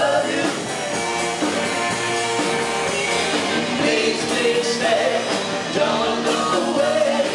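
Live rock and roll band playing: two women singing together over electric guitar and electric bass.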